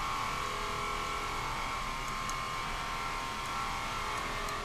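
Woodworking machine in the shop running steadily with a high whine, dropping away right at the end.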